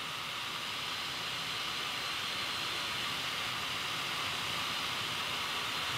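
A pair of 24 V DC centrifugal blower fans salvaged from an Epson Stylus Pro 7900 printer, running at full speed with a steady rush of air and a faint high whine.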